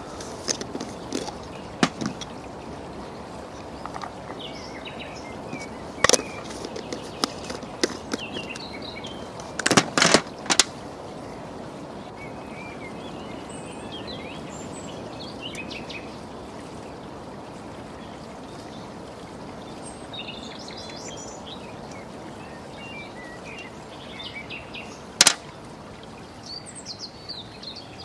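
Outdoor ambience of small birds chirping over a steady background hiss, broken by a few sharp clicks and knocks, the loudest a quick cluster about ten seconds in and a single knock near the end.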